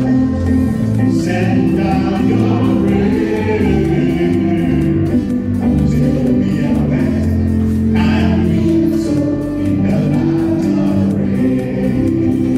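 Gospel worship music with a choir singing, and hands clapping along to the beat.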